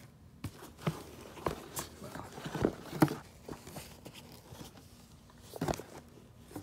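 Handling noise as sneakers are lifted out of a cardboard shoebox: irregular rustling, scraping and light knocks of cardboard and shoe, the loudest knock about three seconds in and another near the end.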